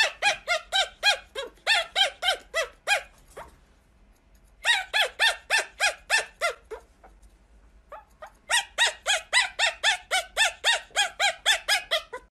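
Tiny puppy yapping in rapid, high-pitched barks, about four a second, each bark rising and falling in pitch. Three bouts, with short pauses about a third and two thirds of the way through.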